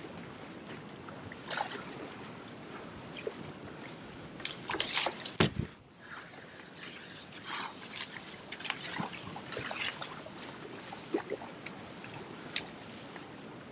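Kayak paddle strokes splashing through fast river current over the steady rush of the water, with a louder knock and splash about halfway through.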